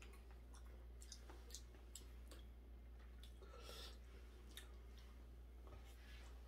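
Near silence with faint, scattered clicks of wooden chopsticks against a small plastic bowl.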